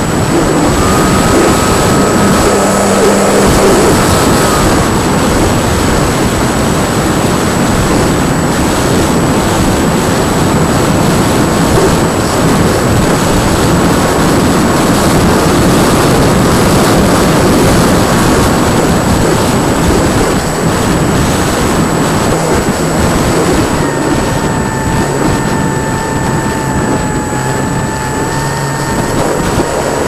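Radio-controlled model airplane in flight, heard from its onboard camera: loud, steady wind and airflow rushing over the microphone, with the faint whine of its motor and propeller coming and going as the throttle changes, strongest about a second in and again near the end at a lower pitch.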